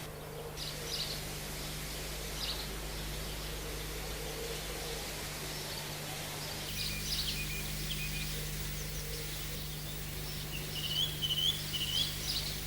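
Small birds chirping and tweeting in short scattered calls, with a quick warbling phrase of repeated notes near the end, over a steady low hum.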